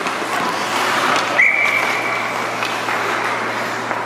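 Hockey referee's whistle blown once, a single steady high tone held for just over a second, starting about a second and a half in over the constant noise of the ice rink.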